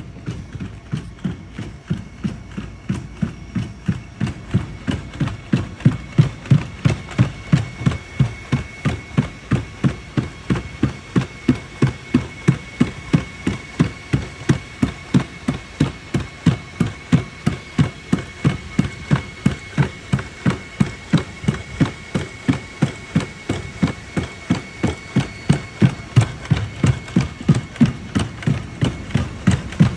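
Unitree B2 quadruped robot walking on concrete under a heavy payload, its feet striking the ground in an even rhythm of about two footfalls a second, with a steady high whine underneath.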